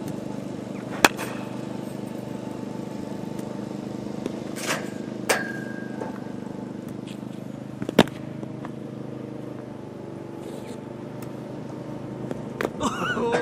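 Cricket bat striking a ball twice, sharp cracks about seven seconds apart, with lighter knocks in between, one followed by a brief ringing tone. A steady mechanical hum runs underneath.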